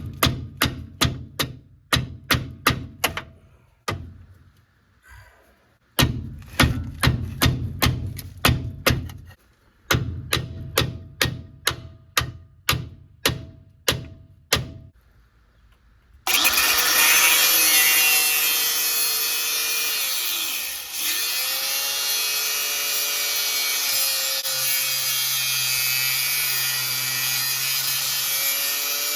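Rapid hammer blows on metal, about three a second in three runs with short pauses, driving a wedge between parts of a truck's front suspension to break a seized bolt. About sixteen seconds in, an angle grinder starts abruptly and runs steadily, cutting into the metal, with a brief dip in its sound a few seconds later.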